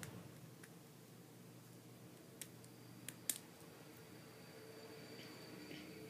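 Small plastic Lego pieces clicking as they are handled: a few short, sharp clicks, the loudest about three seconds in, over quiet room tone.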